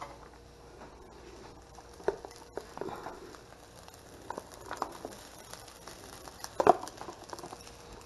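Metal spoon scraping and tapping inside a plastic food container as rice is spooned out into a skillet: scattered light clicks and knocks, with one louder knock late on.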